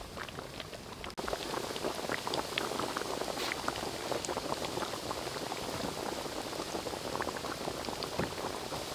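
Battered chicken pieces deep-frying in a wok of hot oil: a steady sizzle full of small crackles and pops from the bubbling oil. It gets louder about a second in and then holds steady.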